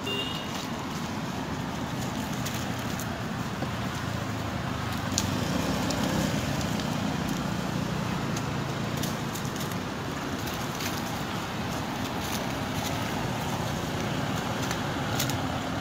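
Steady outdoor background noise with a low rumble, and scattered faint crackles of dry leaf litter.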